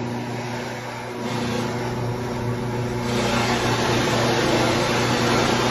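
1950 Stenner chain mortiser running with a steady motor hum. About three seconds in, the mortising chain is lowered into the wood and starts cutting, and the sound turns louder and harsher.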